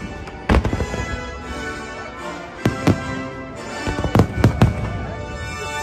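Fireworks shells bursting with sharp bangs: one about half a second in, two close together near the middle, and a quick run of about four shortly after four seconds in, over music.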